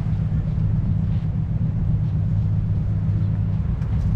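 A car engine idling steadily, a low even rumble with no revving.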